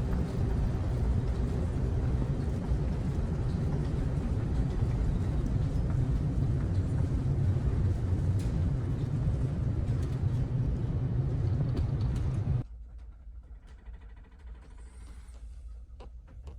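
Steady low rumble with a rushing hiss from a moving vehicle. It cuts off abruptly about twelve and a half seconds in, leaving a much quieter hum with a few faint clicks.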